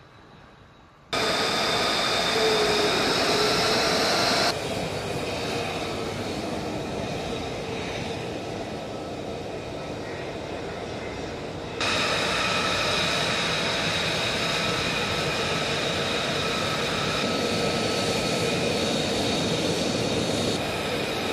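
Fighter jet engines running: F-35A Lightning II single turbofans, a steady rushing noise with a high whine and a lower hum. The sound cuts in abruptly about a second in, drops in level about four seconds in, and comes back louder near twelve seconds.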